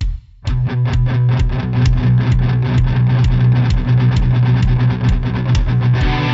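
Guitar-led rock music: after a couple of lone drum hits, the band comes in about half a second in with a guitar holding a low chord over a steady drum beat, a little over two beats a second.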